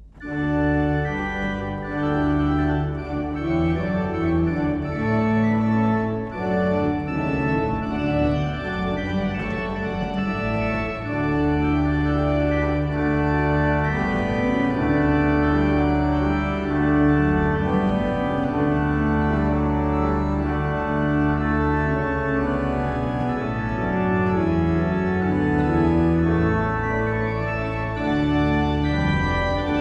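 Church pipe organ playing the postlude that closes the service: full, sustained chords over a deep bass line that moves from note to note, starting suddenly and loud throughout.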